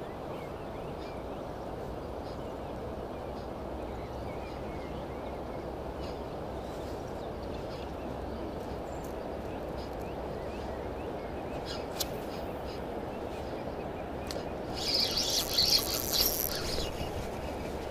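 Steady rush of a flowing river with faint bird chirps. Near the end, a couple of seconds of loud rustling as a jacket sleeve rubs against the chest-mounted camera.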